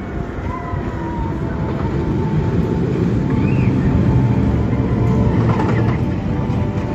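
Vekoma suspended looping coaster (SLC) train running along its steel track overhead: a steady rumble that grows louder toward the middle and then eases off.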